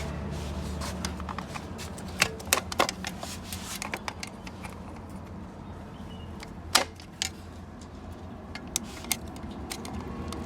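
Irregular metallic clicks and knocks of automatic-transmission parts being handled and set in place during assembly, over a steady low hum; the sharpest knock comes about two-thirds of the way through.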